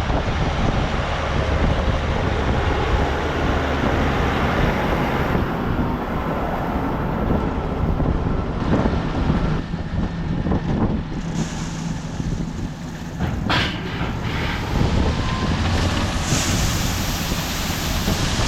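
Heavy farm machinery engine running steadily under a rush of wind on the microphone, with a short sharp sound about two-thirds of the way in.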